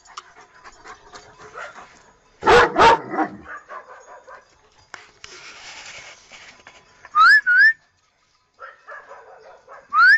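A German Shepherd barks twice in quick succession a few seconds in. Later come short, high rising whistles: two close together, and one more at the very end.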